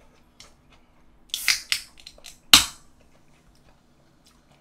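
A soda can of cola being opened by its pull-tab: a few short scraping, crackling sounds about a second in, then one sharp crack about two and a half seconds in, the loudest, with a brief hiss after it.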